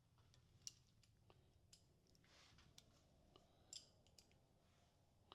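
Near silence with a handful of faint, light clicks scattered across a few seconds: metal bolts being handled as they are threaded by hand into the belt housing cover.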